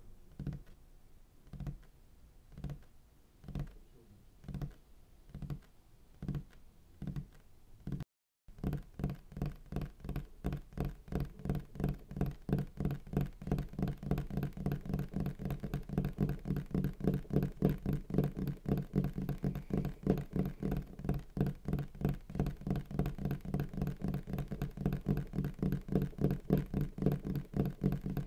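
Soundtrack sound design: evenly spaced dull knocks, about one every 0.7 seconds. About eight seconds in there is a brief dropout, then a faster pulsing beat of about four a second over a steady low hum.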